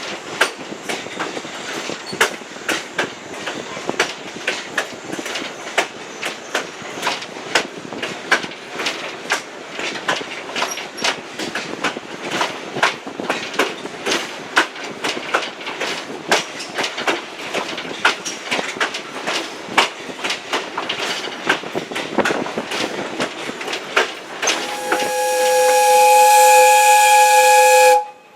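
Passenger coach rolling along the track with a steady clickety-clack of wheels over rail joints. Near the end, the steam whistle of Valley Railroad Mikado #40 gives one long, loud blast of about three seconds that stops sharply.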